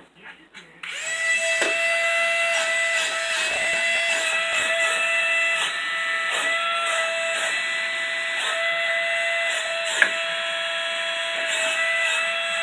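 Small electric suction fan of a wall-climbing RC car starting up about a second in and then running with a steady high whine, the suction that holds the car to the wall. Short clicks and knocks sound now and then over it, with one sharp knock near the end.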